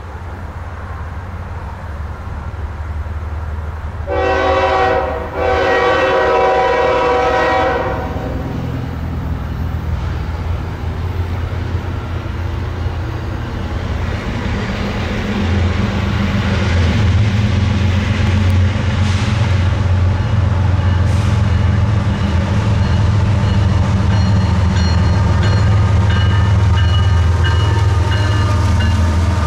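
Freight train diesel locomotives approaching and passing, their engines running with a low rumble that grows louder from about halfway in. About four seconds in, the lead locomotive's air horn sounds a short blast and then a longer one.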